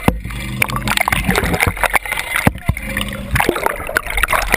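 Seawater rushing, gurgling and splashing over an underwater camera's housing just below the surface, with many sharp knocks and clicks against the housing and a low steady hum at times.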